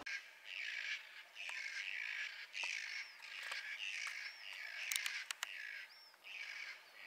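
New Zealand kākā calling: a run of harsh, grating squawks, about one or two a second, with a few short whistled notes in between.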